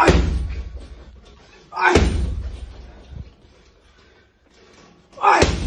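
Boxing gloves punching a hanging heavy bag: three heavy thuds, one at the start, one about two seconds in and one near the end, each dying away over about a second, with a small knock in between.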